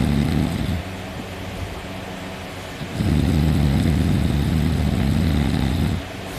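Deep, loud snoring from a sleeping person: one snore ends about a second in, and a long snore of about three seconds starts about three seconds in, with quieter breathing between.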